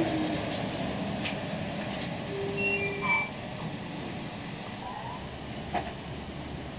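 Oslo T-bane 1300-series metro train rolling slowly past on the rails. A falling whine at the start, brief high squeals about halfway through, and a few sharp clicks.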